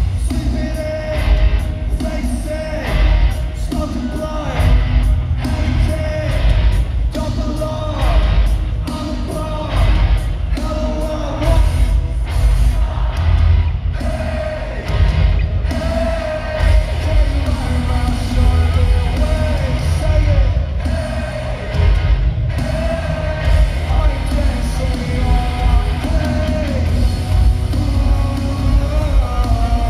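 Live rock band playing at full volume: pounding drums, electric guitars and a lead vocal sung and partly shouted, echoing in a large arena hall.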